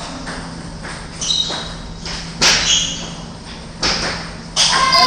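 Table-tennis ball struck back and forth in a rally: a few sharp, echoing clacks about a second apart in a large hall. Children's voices start to rise into cheering at the very end.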